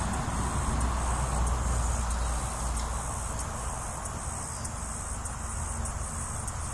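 Outdoor ambience: a steady low rumble under a thin, high-pitched insect buzz with faint regular ticks.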